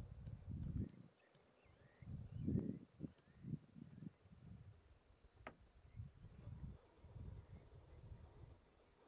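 Insects trilling steadily in the bush, with irregular low rumbles coming and going and louder in the first half. A single sharp click comes about five and a half seconds in.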